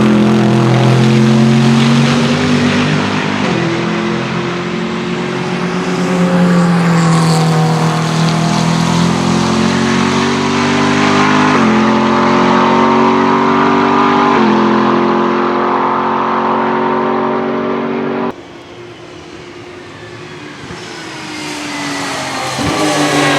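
Race car engine accelerating hard through the gears, its pitch climbing and then dropping sharply at each upshift, several times. About 18 seconds in the sound cuts abruptly to a quieter engine rising in pitch, and it is loud again near the end.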